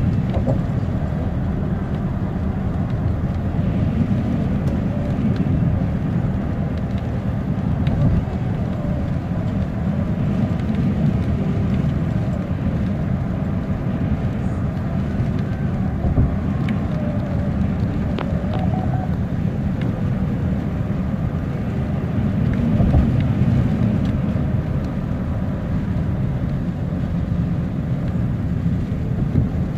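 Steady, loud road and engine noise inside a moving car's cabin, mostly low rumble, with a few faint ticks now and then.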